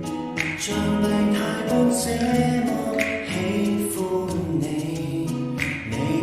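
Cantopop song with singing over instrumental backing, played with a reverberant 'empty space' effect, as if heard from speakers in a large room.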